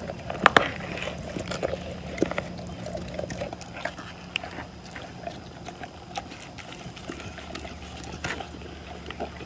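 Dog eating sardines: wet licking and chewing with scattered short clicks, the sharpest about half a second in.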